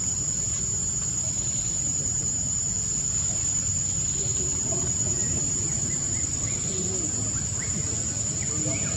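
Steady high-pitched insect drone, with a low rumble beneath it. A few faint short rising chirps come in the second half.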